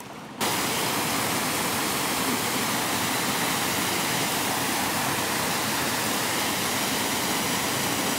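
Steady rush of water from a waterfall, starting abruptly about half a second in.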